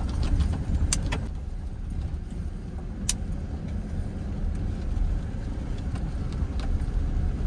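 Inside a 4x4 pickup's cab crawling over a rough dirt trail: a steady low rumble of engine and tyres, with the ignition keys jingling and smacking against the steering column. There are two sharp knocks, about one and three seconds in.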